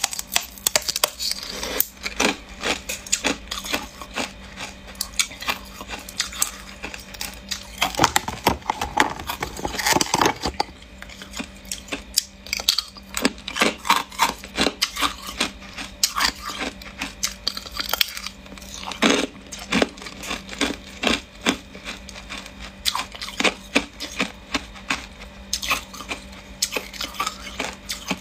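Thin, clear ice being bitten and chewed up close: many sharp cracks and crunches in irregular clusters, over a faint steady hum.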